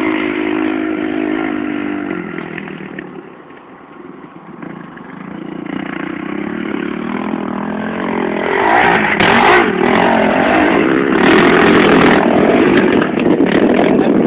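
Dirt bike engines running on a motocross track: one engine note shifts pitch and fades away within a few seconds, then engine noise builds again from about six seconds in and is loudest and roughest over the last five seconds.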